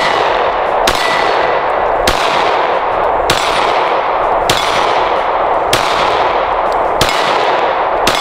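Glock 17 9mm pistol fired one-handed in slow, steady single shots, about one every 1.2 seconds, each with a short fading echo, over a steady rushing noise.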